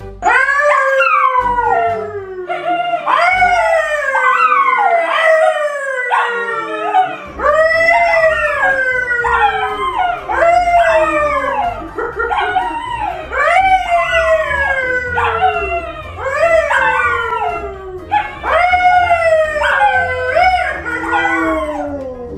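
A yellow Labrador and a brown poodle howling along with a man who howls at them. It is a long run of drawn-out howls, about one a second, each starting high and sliding down in pitch, with the voices overlapping.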